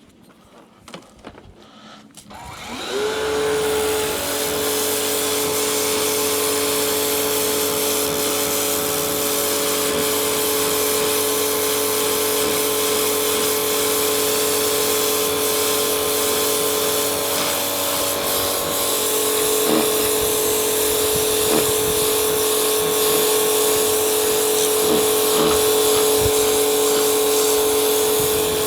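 Battery-powered DeWalt DCMPW1600N pressure washer starting up about two and a half seconds in. It then runs steadily: a motor-and-pump whine over the hiss of the water jet.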